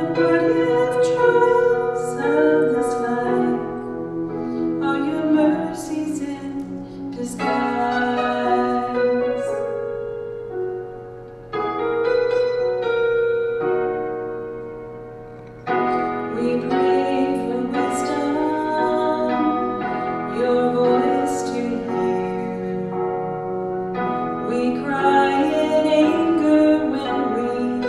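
A song with a woman singing a slow melody over piano accompaniment. It fades down twice between phrases, about 11 and 15 seconds in.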